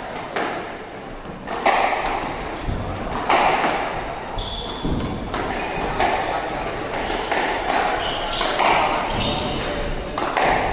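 Squash rally: the ball cracks off rackets and the court walls, a sharp hit about every second, echoing in the enclosed court. Shoes squeak in short, high chirps on the wooden floor.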